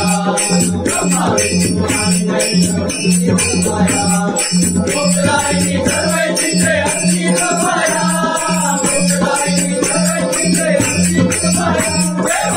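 Marathi devotional aarti song: a melodic vocal line over instrumental accompaniment with a steady, even percussion beat.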